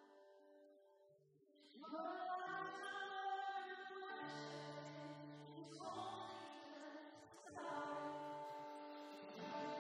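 Live worship band playing a slow song: voices sing held phrases over guitars. The music drops to a quiet lull for the first second and a half, then the singing comes back in with the band.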